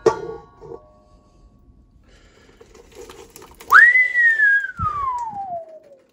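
A whistle that swoops up sharply about halfway through, then slides slowly and steadily down in pitch for about two seconds, like a falling whistle. A short ringing clink sounds at the start.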